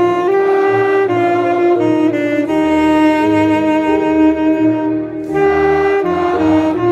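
Alto saxophone playing a slow melody of held notes, with one long sustained note in the middle.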